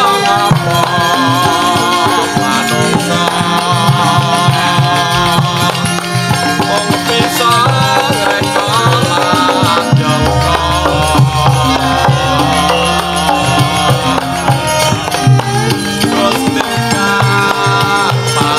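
Javanese gamelan ensemble playing: bronze metallophones and bonang gong-chimes ringing over kendang hand drums, with a wavering melody line above them.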